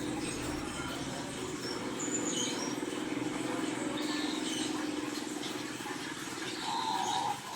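Small birds chirping and tweeting in short scattered calls over a steady low mechanical hum.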